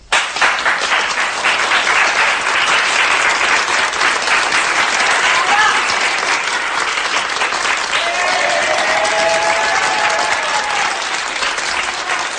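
A roomful of people applauding, the clapping starting abruptly and keeping up steadily, with a voice rising over it about eight seconds in.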